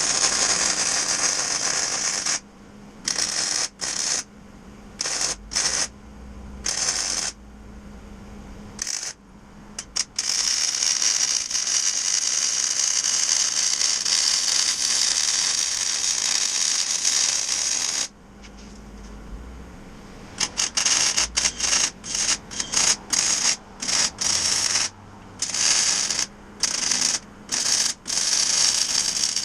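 Metal fabrication work: repeated bursts of hissing, crackling shop-tool noise that start and stop abruptly, with one unbroken run of about eight seconds in the middle and quick short bursts near the end.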